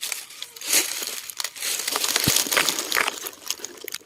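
Dry leaf litter and soil crunching and rustling as they are handled and dug through, with many small crackles.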